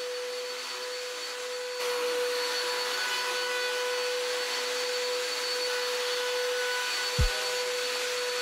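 Corded upright vacuum cleaner running on carpet with a steady whine over its rushing noise, getting louder about two seconds in. A single deep thump sounds near the end.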